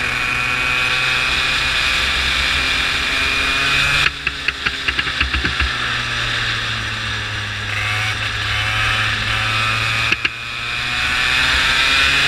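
Go-kart engine running at steady high revs, then easing off suddenly about four seconds in with a quick run of clicks and rattles. It runs on at a lower pitch, breaks off again about ten seconds in, then climbs in pitch as it pulls away.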